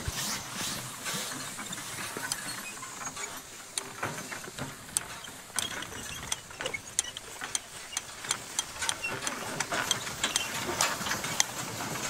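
Horse-drawn side-delivery bar hay rake being pulled through cut hay, its tine reel and gearing rattling with many sharp, irregular clicks.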